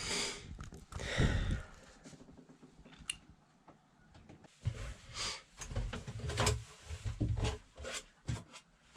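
Irregular knocks, rubs and scrapes of hands handling fittings in the cramped head compartment of a small sailboat, sounding boxy and close.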